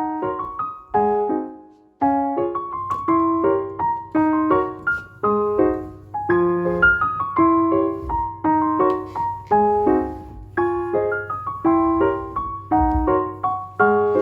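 Background piano music: a gentle solo piano melody of evenly paced notes. It fades out about two seconds in and starts again abruptly.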